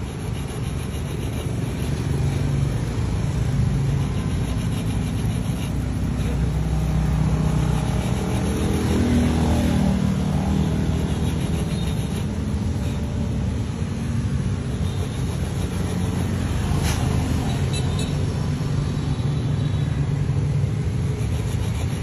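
A small needle file scraping at a worn Zippo flint wheel to recut its teeth, faint under a steady low rumble in the background, with a brief click about 17 seconds in.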